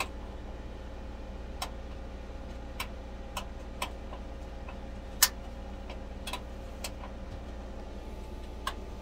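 Small cooking exhaust fan over a camper stove running with a steady hum. Sharp clicks come at irregular moments over it, about eight in all, the loudest about five seconds in.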